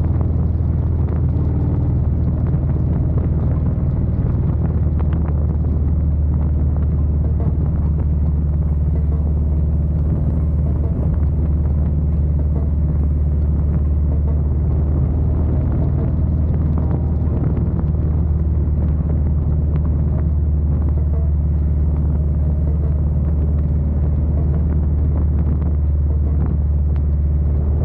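Cruiser motorcycle engine running steadily at freeway cruising speed, a constant deep drone with road and wind noise over it.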